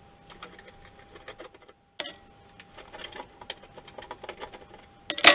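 Small irregular clicks and taps of fingers working the metal case of a 1950s Van Der Heem 9908 frequency counter to open it, with a faint steady tone underneath. A sharp click comes about two seconds in, and a cluster of loud sharp metallic clicks comes near the end as the case comes loose.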